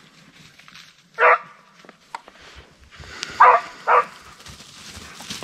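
Beagle barking three times: one short bark about a second in, then two more in quick succession about two seconds later.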